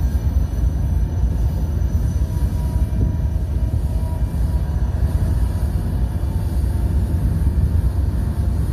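Lead GE diesel-electric locomotives, an ES44AC and an AC4400CW, pulling a Union Pacific freight train slowly toward the listener: a steady low engine rumble.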